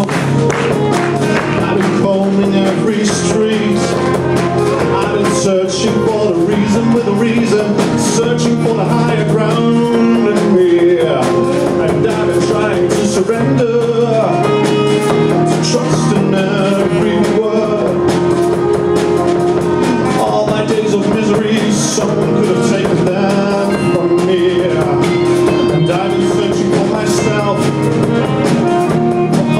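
Live band playing a song, with a man singing lead over the instruments.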